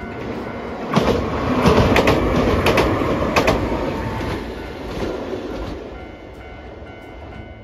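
A Hiroshima Electric Railway Green Mover Max low-floor tram (car 5107) passing close on a rail bridge. Its wheels clack over the rail joints, several sharp clicks coming in pairs, and the running noise fades away after about five seconds.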